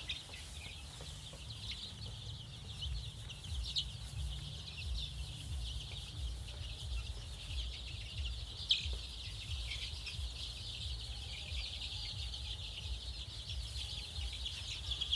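A flock of young Sonali chicks, about 17 days old, peeping continuously: many overlapping short, high chirps. A low rumble runs underneath.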